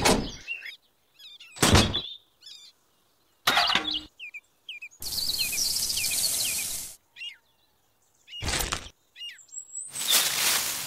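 Sand poured from a small tin into a can makes a steady hiss for about two seconds, and near the end powder poured from a tiny paper cement bag hisses again. A few short knocks of the toy mixer being handled come between. Birds chirp throughout.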